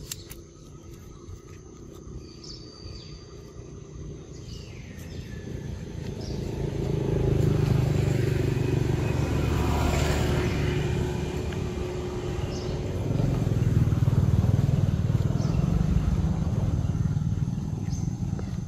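A motor vehicle passing: a low engine rumble that builds over several seconds, is loudest about ten seconds in, eases a little, then swells again a few seconds later.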